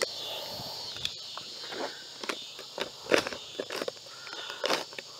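Irregular rustles and crinkles from an opened plastic seed bag being handled, mixed with footsteps in grass, the loudest crackle a little past three seconds in. A steady high insect drone runs underneath.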